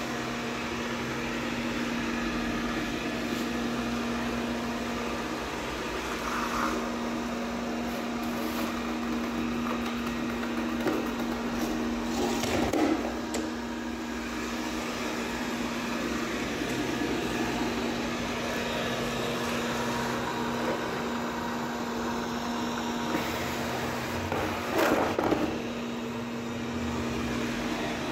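Robot vacuum cleaner running with a steady hum, broken twice by brief louder noises, about halfway through and near the end.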